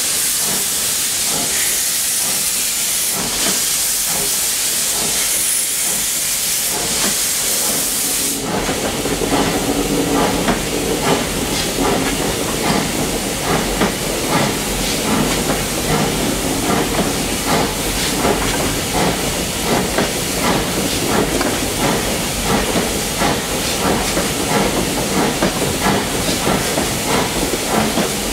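Steam locomotive Princess pulling away up a gradient. For about the first eight seconds a loud steady hiss of steam from its open cylinder drain cocks covers everything. Then the hiss cuts off sharply and the engine's regular exhaust chuffs come through, with wheel and rail noise, as it works up the bank.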